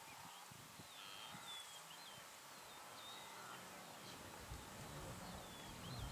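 Quiet open-air ambience: faint, short bird chirps every second or so over a steady low hiss.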